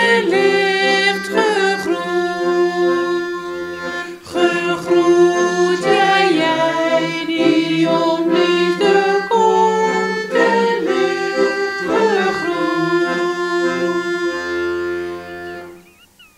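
A woman singing a slow greeting song in Dutch over held instrumental chords with a steady low drone. The music fades out shortly before the end.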